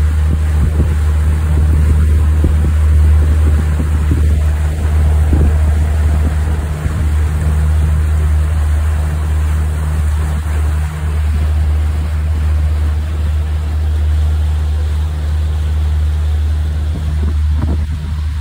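Outboard motor pushing a pontoon boat, running with a steady low drone at cruising speed, over the rush of wind and water from the wake.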